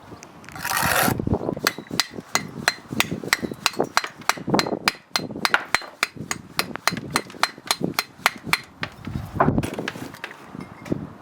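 A brick hammer chipping and trimming a brick: a brief scrape, then a long run of sharp, ringing knocks at about three a second, easing off near the end.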